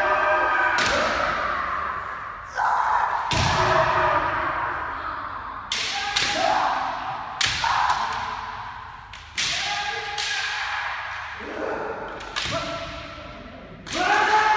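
Kendo sparring: about ten sharp cracks and thuds of bamboo shinai striking armour and bare feet stamping on the floor, several joined by long held kiai shouts. Everything rings with a long echo from the big hall.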